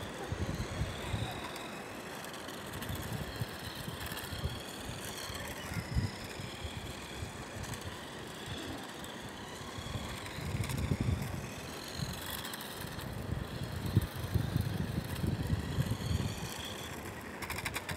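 Small radio-controlled car's motor whining, its pitch rising and falling as it is driven about. Low wind rumble on the microphone comes in at times, most around the middle and near the end.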